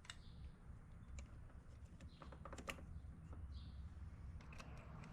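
Faint scattered clicks and light taps of hand tools and metal parts being handled during engine reassembly, a dozen or so irregular ticks over a low steady hum.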